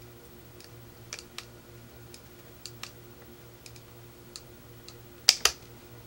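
Flathead screwdriver prying at the plastic keypad bezel of a DirecTV remote control: scattered light clicks and ticks of metal on plastic, then two sharp plastic snaps close together near the end as the bezel's clips let go.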